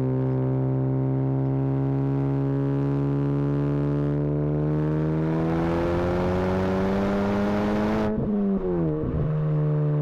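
Honda Civic Type R's turbocharged 2.0-litre four-cylinder through an AWE Track Edition exhaust, recorded right at the tailpipes. It drones steadily while cruising, then climbs in pitch under acceleration with rising turbo and exhaust rasp. About eight seconds in the throttle lifts and the pitch drops sharply to a lower steady note.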